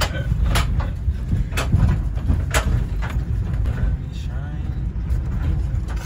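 Car driving over a rutted dirt track, heard inside the cabin: a steady low rumble from tyres and suspension, with sharp knocks and rattles as the car jolts over the bumps.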